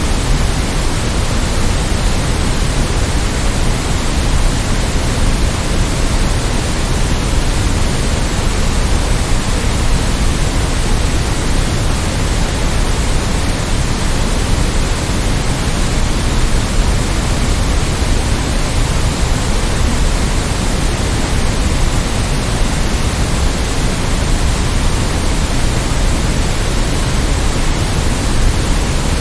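Steady synthetic white noise: an even, unchanging hiss with extra weight in the low end, like pink noise.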